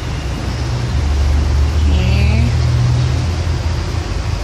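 Low, steady rumble of a car engine running, swelling louder from about one to three seconds in.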